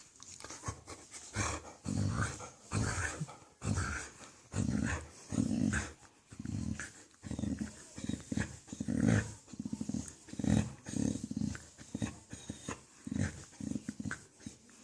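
Dog making weird, low vocal noises over and over while being petted, short bursts one after another, a sign that it is enjoying the petting.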